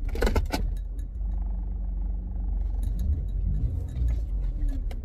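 Low, steady rumble of a car running, heard from inside the cabin, with a brief sharp click just after the start.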